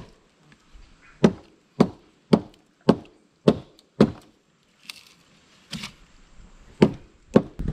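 Machete blade chopping into a wooden stick: a run of sharp strikes about every half second, a short lull with a couple of softer cuts, then two more strikes near the end.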